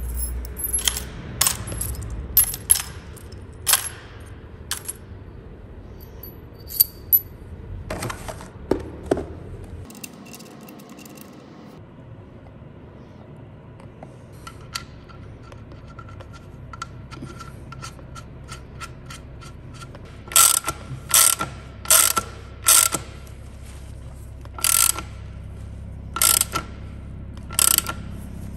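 Ratchet wrench clicking as a bolt is tightened, with scattered metal clicks of tools and parts; from about twenty seconds in, a run of louder ratchet strokes less than a second apart.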